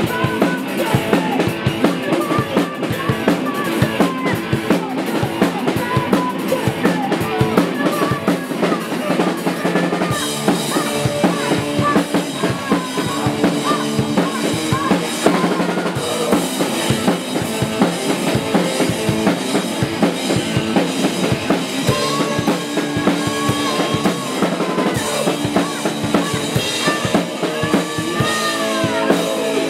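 Live rock band playing loudly: a drum kit hammering out a fast, busy beat under electric guitar.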